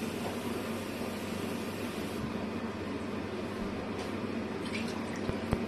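Steady hiss with a low hum from the kitchen stove area, the gas burner lit under the soup pot; two short knocks near the end.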